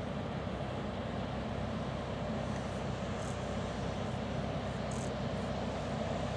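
Vineyard tractor working a Grecale multi-row air-blast sprayer: a steady engine drone under the rushing of the sprayer's fan blowing mist.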